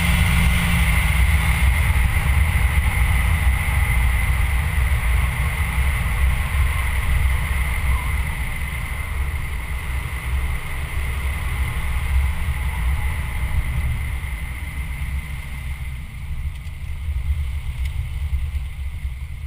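Low, steady rumble of wind and road noise on a vehicle-mounted camera moving at speed, easing off over the last few seconds as the vehicle slows and pulls off the road.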